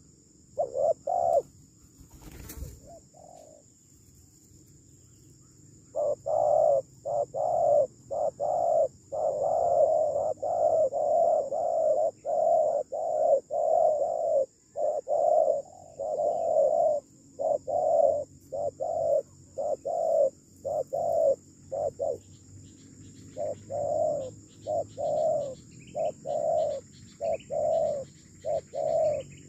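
Spotted dove cooing: a long run of short, low coos at about two a second, starting after a pause of a few seconds near the beginning and breaking off briefly for about a second later on.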